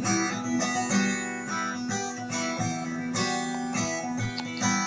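Acoustic guitar strummed in a run of chords, the instrumental close of a song after the last sung line.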